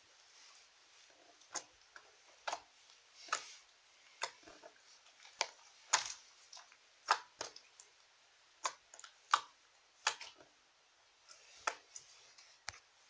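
Slime being pressed and stretched, making a string of sharp popping clicks at an irregular pace, about one or two a second.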